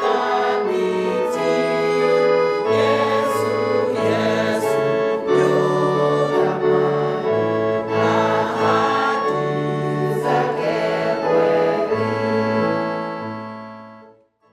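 Church music: sustained chords over a moving bass line, with voices possibly singing along, fading out to silence near the end.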